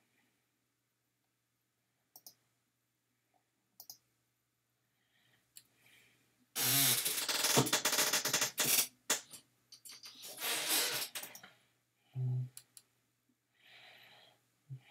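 A few sharp clicks, typical of a computer mouse, then loud, noisy rushing sounds close to the microphone, one lasting about two seconds and a shorter one after it, with a soft breathy sound near the end.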